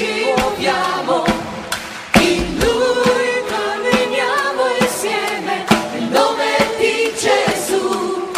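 Background music: a choir singing held, wavering melodic lines over sharp percussion hits.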